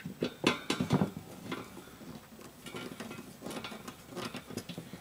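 Screwdriver fastening the faceplate screw of an in-wall fan heater, the tool's metal shaft clicking and scraping against the metal grille louvres in quick irregular clinks. The clinks come in two busy spells, around the first second and again from about three to four and a half seconds in.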